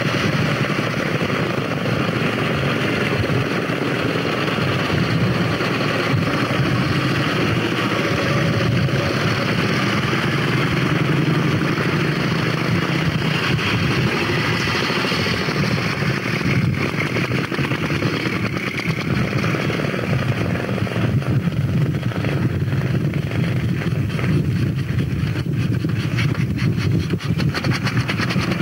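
Vintage motorcycle engines running steadily as the bikes ride past one after another.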